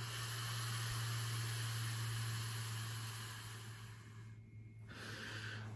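Long, steady breath blown through a cupped fist into a hand-rolled tobacco cigarette, a soft hiss that fades out about three and a half seconds in, then a fainter breath near the end. This is sopla, blowing into the tobacco before smoking it.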